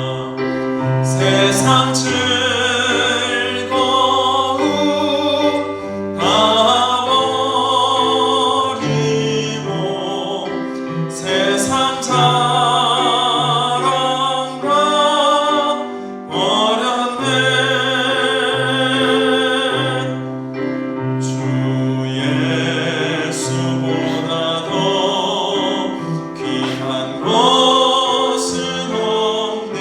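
Sacred song sung with strong vibrato, in phrases of a few seconds, over sustained keyboard accompaniment.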